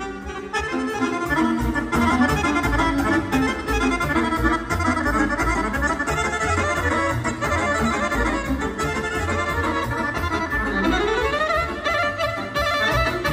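Balkan kolo dance music led by accordion, with rapid runs of notes over a steady beat. Near the end a run slides upward in pitch.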